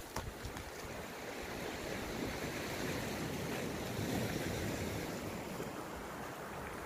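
Sea surf washing against the shore, a steady wash that swells slightly and eases off again.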